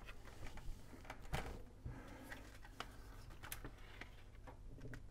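Scattered light knocks, clicks and scrapes as a Sharp VZ-3000 vertical record player is turned round on a wooden workbench, the loudest knock about a second and a half in.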